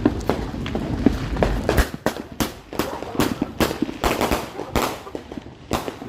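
Consumer firework going off in a rapid string of sharp cracks, about three a second.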